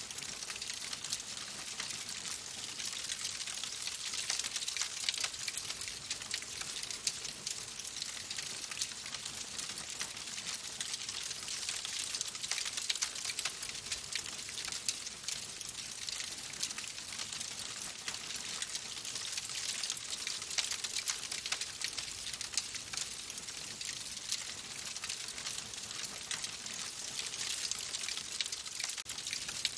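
Wood fire burning in a fireplace, a steady hiss full of small, rapid crackles and pops from the burning wood.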